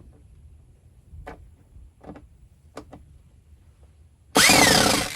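A few light clicks and taps, then near the end a short burst from a power drill driving a screw to fix a doorbell camera's mounting plate to the wall, its motor whine rising and then falling.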